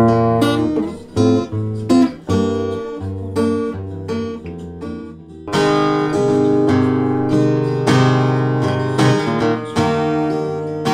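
Acoustic-electric guitar strummed and picked through a JBL EON One Compact PA speaker, chords struck every second or two and left ringing, with a fuller strummed chord about halfway through.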